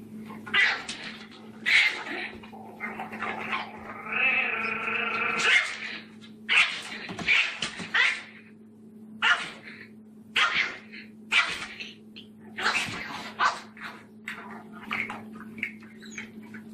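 Small puppy guarding its food bowl, growling and snarling at a larger dog in short high-pitched bursts, with one longer drawn-out snarl about four seconds in.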